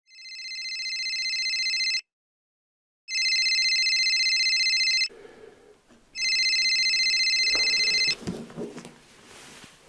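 Telephone ringing with a trilling electronic ring, three rings of about two seconds each with a second's pause between them. It stops after the third ring, as the call is answered.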